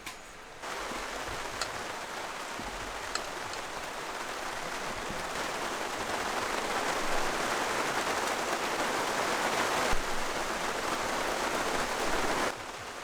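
Heavy rain falling steadily, growing gradually louder, then cutting off suddenly near the end.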